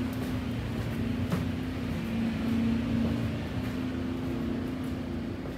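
Steady low hum of a cruise ship's interior, its ventilation and machinery noise, with a continuous droning tone. A single faint click comes about a second in.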